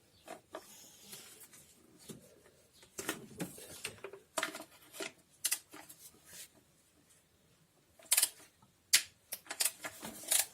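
Wrenches clinking against the valve cover bolts: an irregular run of sharp metallic clicks and knocks, in two clusters with a quieter gap between them.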